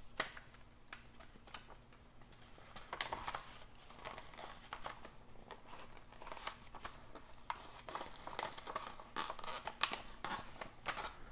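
Paper mailing envelope being torn and pulled open by hand: scattered rustling, crinkling and short tearing sounds.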